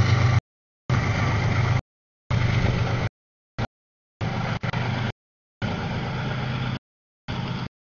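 Freight train diesel locomotive engine running with a steady low hum under a wide rumble, heard as a string of short snippets, each about a second long and cut off abruptly into dead silence before the next.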